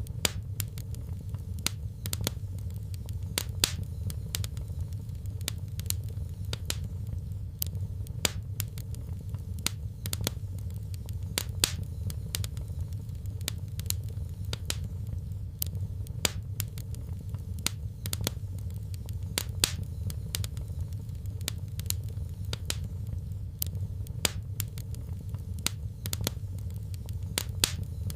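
Fireplace fire crackling, with irregular sharp pops and snaps over a steady low rumble.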